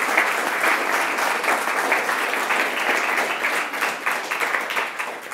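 Audience applauding: many hands clapping steadily, tapering off near the end.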